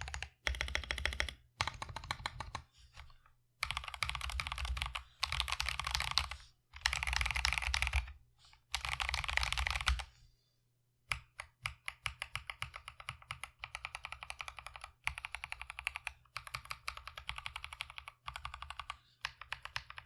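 Typing on a mechanical keyboard fitted with Akko POM Brown tactile switches, fully POM switches: dense bursts of keystrokes with short gaps for about the first half, then after a brief pause a steadier run of lighter, evenly spaced keystrokes.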